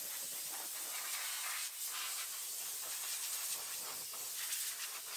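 Steady hiss of compressed air from a pneumatic tool on an air hose.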